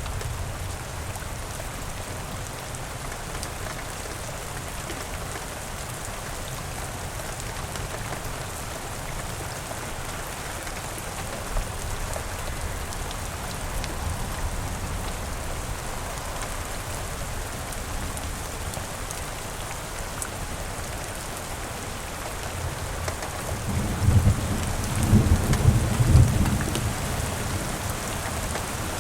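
Steady rain falling, with a low rumble of thunder rising and peaking about three-quarters of the way through.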